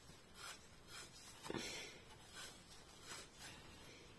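Faint rustling and light handling noises of viscose fabric being bunched onto a fabric-turning straw, with a slightly fuller rustle about a second and a half in.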